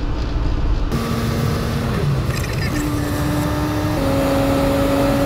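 Truck driving on the highway: steady engine hum and road noise. About a second in the sound turns brighter and hissier, and the engine hum then shifts to a new pitch a few times.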